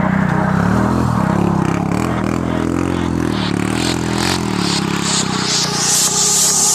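Sport quad bike (ATV) engine revving up and down under load on a muddy climb, with the scrape and clatter of spinning tyres throwing up dirt.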